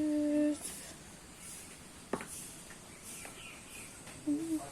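A person humming: a short held note at the start, then short hummed notes again near the end, with one brief sharp click about two seconds in.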